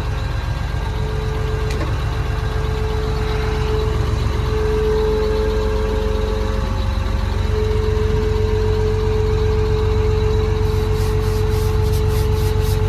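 John Deere 950J bulldozer's Liebherr diesel engine idling steadily, heard from inside the cab, with a steady whine over the low engine hum. Near the end comes a quick run of light ticks, about four a second.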